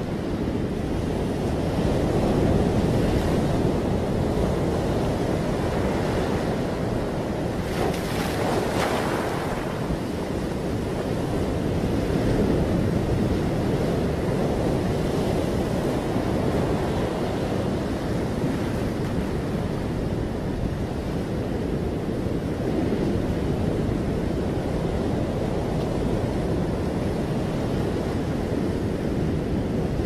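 Ocean waves breaking in surf: a steady rushing wash that swells and eases every ten seconds or so, with a brighter hiss of foam about eight seconds in.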